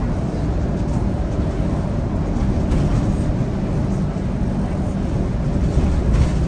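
Scania K230UB Euro V city bus driving along, heard from inside the cabin at the front: its nine-litre five-cylinder diesel engine running steadily under the floor with tyre and road noise, plus a few faint rattles near the end.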